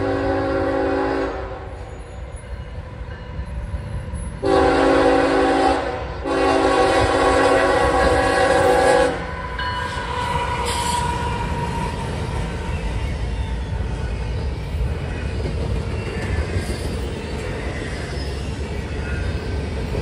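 Freight train's diesel locomotive horn sounding a multi-note chord for a grade crossing: the tail of one blast, a short blast about four and a half seconds in, and a longer blast that stops about nine seconds in. The locomotives then pass, followed by double-stack intermodal cars rumbling and clacking steadily over the rails.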